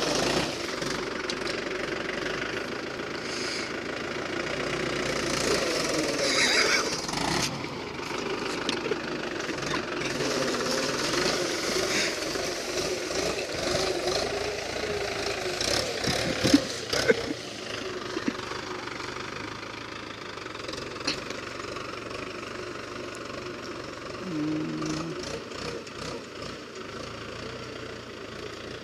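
Mahindra 475 tractor's diesel engine running steadily as it pulls a disc harrow through dry soil, growing fainter as the tractor moves off. A few sharp clacks come about halfway through.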